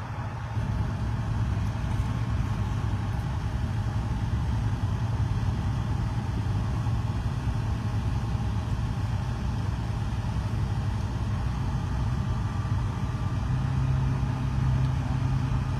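Tractor and truck engines idling together, a steady low engine sound; a little over three-quarters of the way through, one engine's low hum gets louder.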